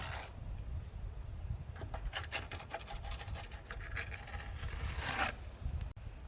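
Scraping and rubbing noises: a quick run of short strokes from about two seconds in, over a low rumble.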